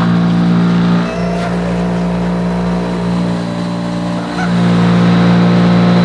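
Wood chipper's engine running as the machine shreds fruit. About a second in its sound dips and turns rougher for about three seconds, then evens out to a steady hum.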